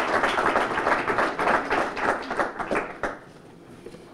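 Audience applauding in many close, quick claps that die away about three seconds in.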